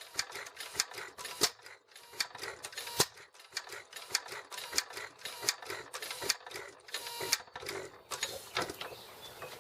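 Antique Sattley hit-and-miss farm engine being worked at, its mechanism giving an irregular run of sharp clicks and clacks, two or three a second. The owner reckons the engine is getting way too much fuel.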